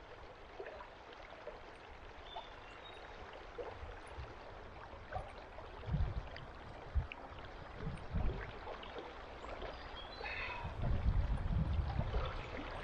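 River water running over a shallow riffle, a steady rushing hiss. Scattered low rumbles and bumps break through, growing louder near the end.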